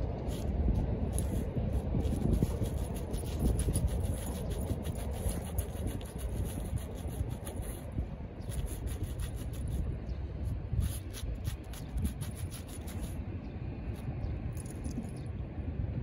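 Black Shiba Inu digging in dry, gravelly dirt: rapid scraping and scratching that thins out about three seconds before the end, over a low steady rumble.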